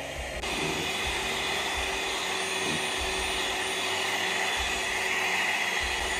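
Scarlett seven-speed electric hand mixer running steadily, its beaters whipping cream. It gets louder about half a second in.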